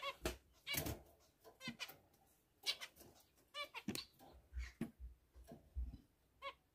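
Small cage finches giving short nasal calls, roughly one a second, with a few soft low knocks of the camera being handled against the nest box in the second half.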